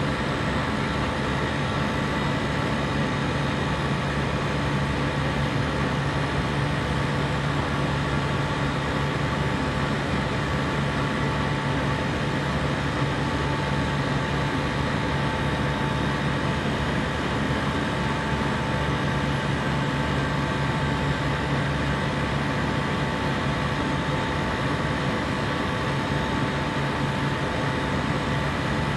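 A compressor running steadily: a constant hum with a few fixed tones over an even whir, with no change in pitch or level.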